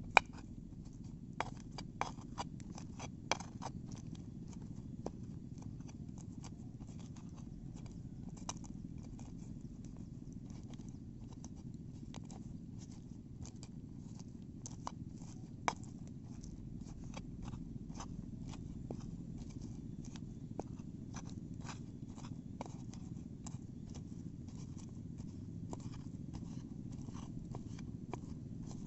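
Outdoor cooking: irregular sharp clicks and taps of utensils working food, loudest right at the start and a few times in the first few seconds, over a steady low rumble.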